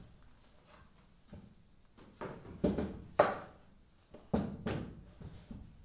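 Claw hammer tapping a small finish nail into plywood: several short, unevenly spaced knocks, the loudest about three seconds in.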